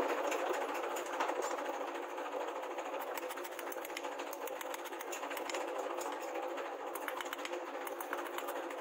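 Rapid, light hammer taps on steel, a hand hammer striking the rebar prongs of a three-pronged fishing spear on a steel anvil, many blows a second in a steady run.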